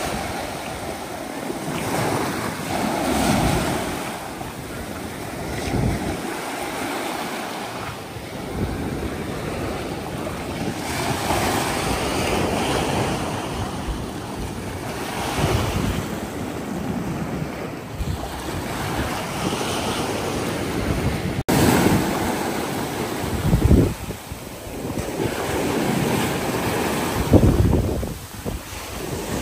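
Sea waves surging and breaking on the shore, in swells that rise and fall, with strong wind buffeting the microphone in heavy low gusts near the end. A brief dropout about two-thirds of the way through.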